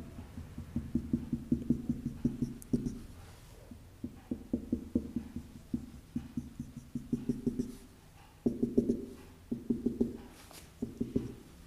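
Marker pen dabbing out dashed lines on a whiteboard: several runs of quick short ticks, one per dash, with brief pauses between runs.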